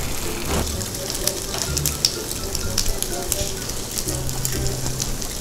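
Eel pieces sizzling on a tabletop grill, with many small crackles and pops over a steady hiss.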